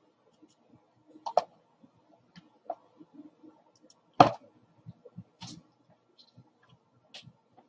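Irregular clicks and knocks from equipment being handled close to the microphone, the loudest a sharp knock about four seconds in.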